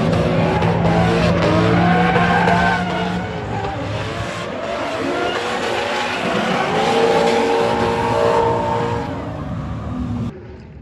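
Two drift cars in a tandem battle: the engines rev up and down on and off the throttle while the tyres screech in a continuous slide. The sound is loud throughout and cuts off shortly before the end.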